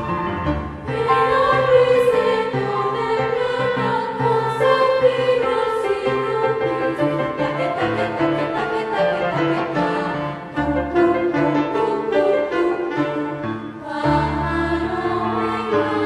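Song from a stage musical: singing over an orchestral-style backing with bowed strings, pausing briefly between phrases about ten and fourteen seconds in.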